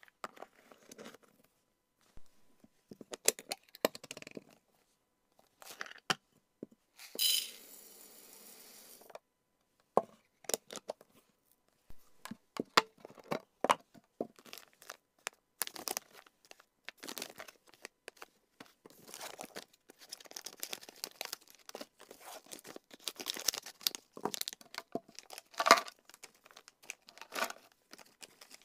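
Plastic snack packaging crinkling and being torn open, with many short clicks and taps as dried chicken and duck jerky strips are handled and set into a clear plastic storage container.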